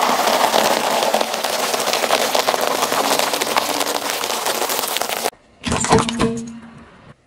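Car tyre crushing a pile of small crunchy fish-shaped crackers: a dense, loud crackling of many small snaps for about five seconds that cuts off suddenly. Near the end a second, shorter crunch fades out as a tyre presses thin brittle fragments into the asphalt.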